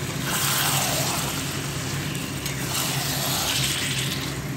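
Chicken pieces and potatoes in masala sizzling in a pan on high heat while being stirred with a spatula; the hiss swells and eases with the stirring.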